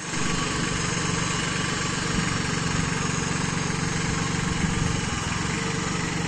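Indo Farm compact tractor's diesel engine running steadily with an even, rapid throb.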